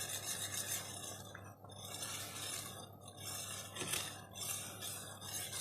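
A spoon stirring and clinking against a pot of boiling caramel sugar syrup, over a steady hiss that dips twice and comes back.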